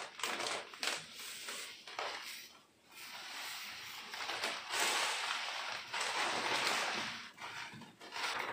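Uncooked rice grains pouring from a plastic bag into a plastic storage tub: a grainy hiss, with the bag crinkling. It comes in a few pours, with a short break about three seconds in.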